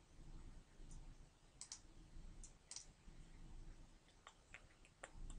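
Faint computer mouse clicks, several scattered over a few seconds, more of them near the end, over near silence.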